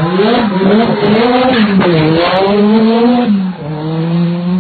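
Rally car engine being driven hard, its pitch repeatedly climbing and falling. The sound dips briefly about three and a half seconds in, then holds a steadier note near the end.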